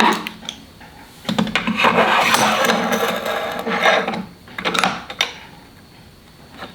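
A knock, then about three seconds of scraping against wood, followed by two short scrapes.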